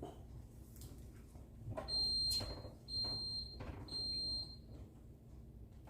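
An electronic beeper sounds three high, steady beeps, each about half a second long and about a second apart, starting about two seconds in, with a few faint knocks around them.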